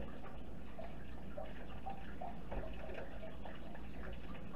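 Butter starting to boil in a pan: faint, scattered little pops and crackles over a low steady hum.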